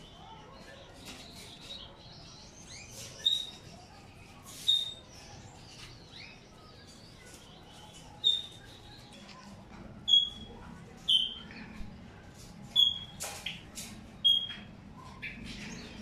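Small cage finches calling: short, high, sharp calls repeated at uneven intervals of one to two seconds, with fainter chirps between them.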